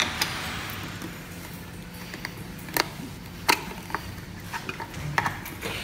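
A handful of scattered sharp clicks and light knocks from the rechargeable battery pack being handled at the Teknetics G2 metal detector's control box, over a low steady hum.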